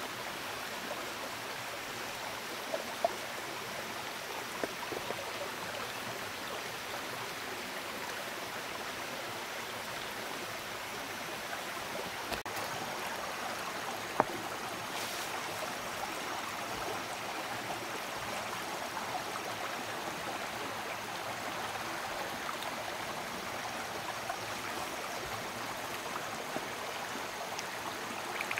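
Steady rush of running water, with a few brief sharp clicks over it.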